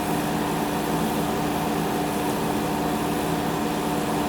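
Excavator diesel engine running at a steady speed, with an even hum and no change in pitch.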